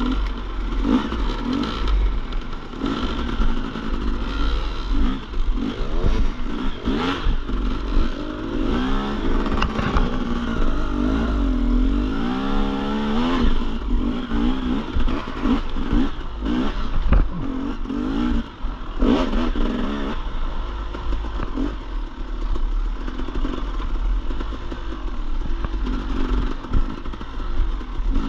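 Dirt bike engine revving up and down, its pitch rising and falling with the throttle, with clattering over rough ground.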